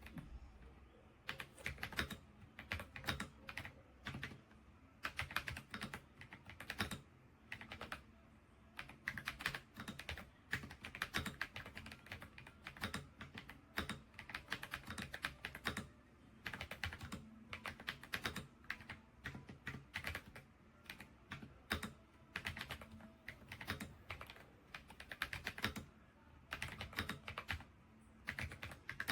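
Typing on a Redragon K668 full-size mechanical keyboard: irregular bursts of rapid key clicks, a second or two each, with short pauses between them.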